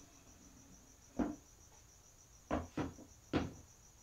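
Four short knocks on wood, one about a second in and three close together near the end, as a glue bottle is set down and plywood box parts are handled on a wooden workbench. Crickets chirp steadily and faintly throughout.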